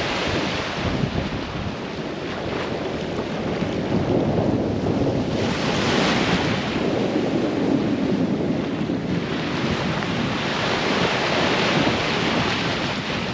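Indian Ocean surf washing onto the beach, swelling twice, with wind blowing across the microphone.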